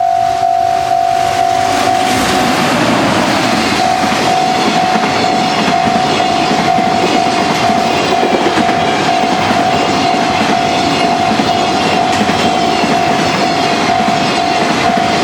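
Level-crossing warning bell ringing steadily while a container freight train hauled by an EF200 electric locomotive passes; about two seconds in, the rolling noise of the train rises and holds as the wagons go by.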